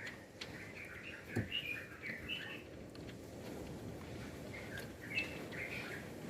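Birds chirping in quick runs of short notes, in two spells, with a single light knock about a second and a half in.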